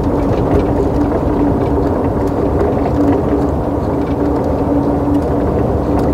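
Heavy truck's diesel engine and road noise heard from inside the cab while cruising: a steady low rumble with a constant hum.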